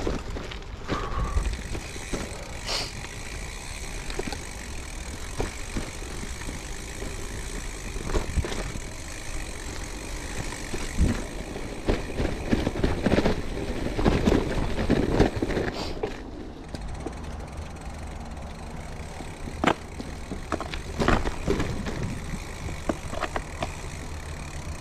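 Gravel bike rolling over a rough, technical dirt trail: tyre rumble with frequent knocks and rattles from the bike over bumps. About two-thirds of the way through, a steady low hum comes in underneath.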